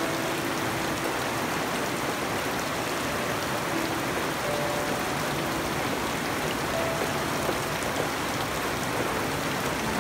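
Steady rain falling on garden foliage and wet ground, an even, unbroken hiss.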